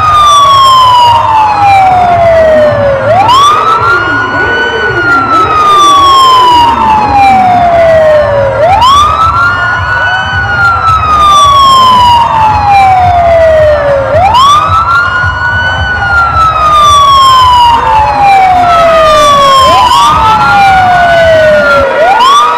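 A siren wailing in a repeating cycle: it sweeps up quickly, then falls slowly over about four seconds, once about every five and a half seconds, with a low rumble underneath.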